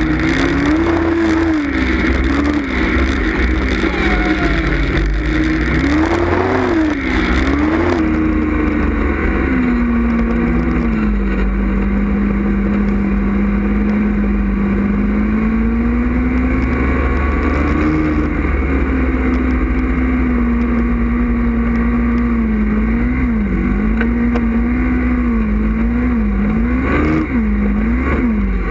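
Yamaha snowmobile engine running under way, its pitch rising and falling again and again as the throttle is worked, over a steady rush of noise. The hiss above the engine drops away about eight seconds in.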